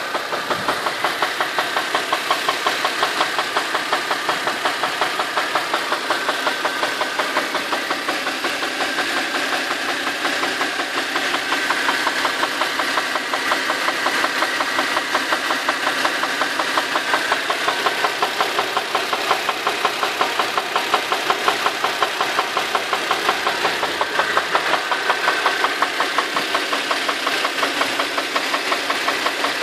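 Infiniti FX35's 3.5-litre V6 idling warm, with a steady, rapid, even knock from inside the engine.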